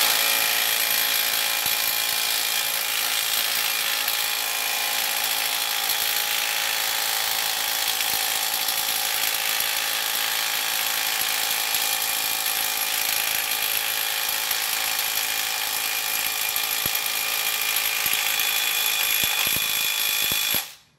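Milwaukee Fuel cordless impact wrench hammering steadily for about twenty seconds, driving the harmonic balancer onto the engine's crankshaft. It stops abruptly near the end, once the balancer is fully seated.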